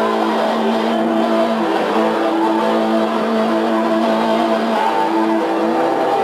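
Hollow-body electric guitar played loud through an amplifier, mostly long held notes that change pitch every second or so, with a note bent upward near the end.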